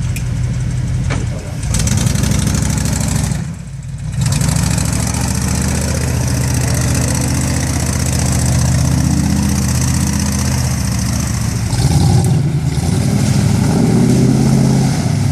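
An off-road 4x4's engine running and revving, its pitch rising and falling, with a short drop in level about three and a half seconds in.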